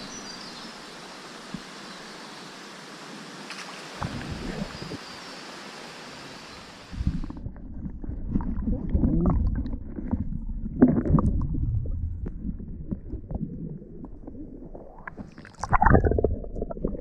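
Steady hiss of rushing creek water, then about seven seconds in an abrupt change to a muffled, low rumbling of water with irregular knocks.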